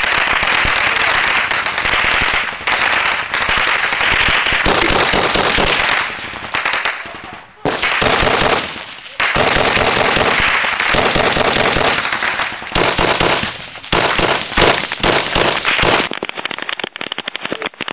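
Dense, rapid rifle fire close to the microphone, nearly continuous with a few short lulls. Near the end it changes to a run of separate, sharper cracks.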